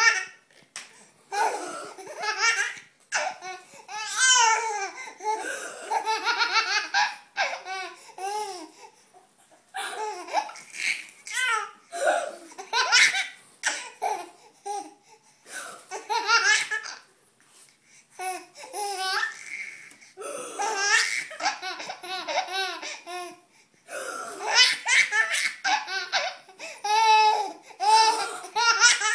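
Baby boy laughing hysterically in repeated high-pitched bouts, with short breaks between fits of laughter.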